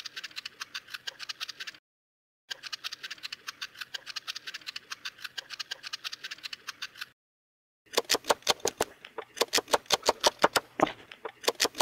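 Vegetable peeler skinning a Granny Smith apple: a fast run of small, crisp scraping strokes, broken twice by brief silences. About eight seconds in, it gives way to louder knocks of a large knife cutting the peeled apple on a wooden cutting board.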